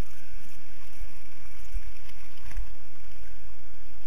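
Muddy water sloshing around a person wading and crawling through a chest-deep pool, heard as a low, uneven rumble through a GoPro's waterproof housing, with a couple of heavier surges about two seconds in.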